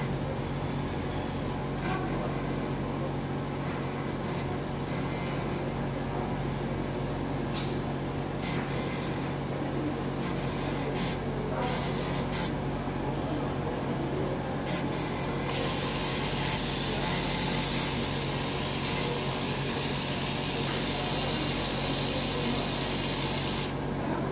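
Industrial robot work cell running with a steady mechanical hum and a few scattered clicks. About sixteen seconds in, a loud hiss starts, holds steady for about eight seconds, and cuts off suddenly.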